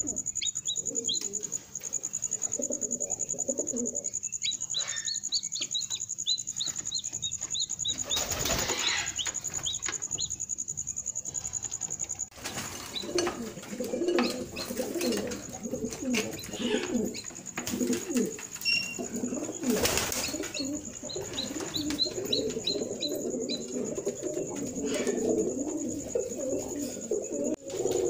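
Pigeons cooing in a loft, with runs of short high peeps from newly hatched chicks and a steady high-pitched whine in the background.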